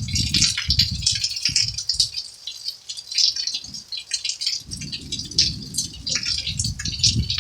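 Rain falling on a hard surface close to the microphone: a dense, irregular ticking of drops, over a low drumming that fades out for a couple of seconds in the middle and comes back.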